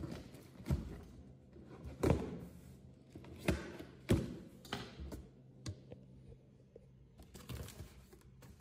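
Cardboard box being opened by hand: flaps folded back and handled, with about six dull thunks and taps and some cardboard rustling between them.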